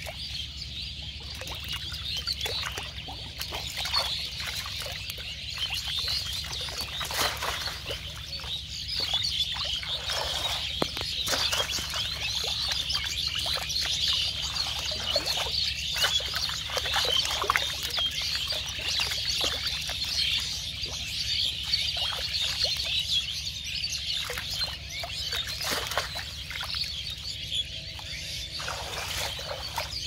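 A dense, steady chorus of many small birds chirping, with irregular splashes and rustles of water and netting as hands work through a mesh box trap standing in shallow water.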